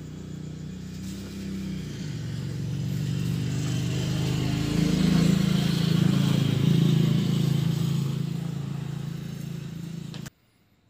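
Motor vehicle engine running, growing louder to a peak in the middle and then fading, as of a vehicle passing close by; the sound cuts off suddenly near the end.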